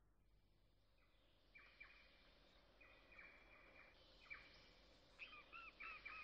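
Faint bird chirps: short flat whistled notes from about a second and a half in, then quicker arched chirps, a few a second, growing louder near the end.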